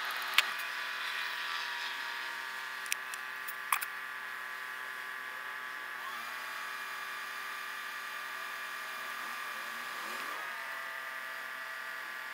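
A car engine idling, heard from inside the stopped car and sped up sixfold, so the idle becomes a steady high-pitched buzz. A few sharp clicks come in the first four seconds.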